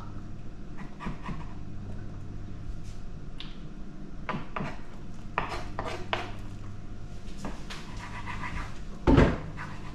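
Kitchen prep sounds: knife knocks and scrapes on a wooden chopping board and bowls clinking, with boiling water poured from an electric kettle into a bowl, over a steady low hum. A loud thump about nine seconds in.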